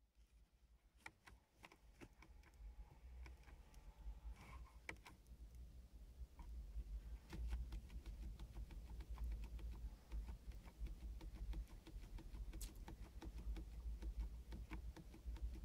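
Quiet, irregular clicking of the Golf's steering-wheel menu buttons being pressed over and over to scroll the instrument-cluster menus, growing faster about halfway through, over a faint low rumble.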